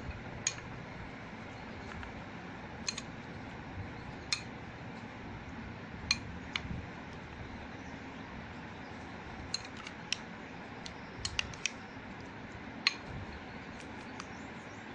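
A spoon clinks now and then against a bowl as an egg and potato omelette batter is stirred, in short sharp taps at irregular intervals over a steady low hiss.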